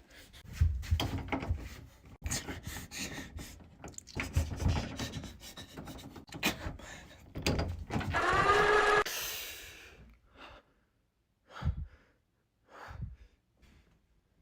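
Loud, uneven snoring, in irregular bursts. About eight seconds in comes a brief high, pitched cry, followed by a burst of hiss, then two short snorts near the end.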